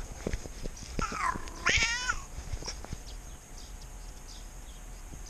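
A cat meowing twice: a short call falling in pitch about a second in, then a louder, wavering meow, with scattered light taps and clicks around it.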